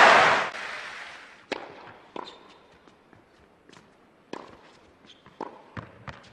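Crowd cheering in a tennis arena dies away within the first half second, then scattered short sharp knocks and taps on the court, about eight of them at uneven spacing: footsteps and tennis ball bounces between points.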